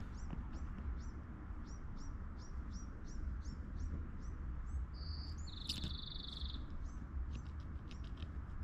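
Songbirds chirping: a run of short, high, quick chirps throughout, and about five seconds in one bird gives a short high note followed by a buzzy trill lasting about a second. A steady low rumble runs underneath.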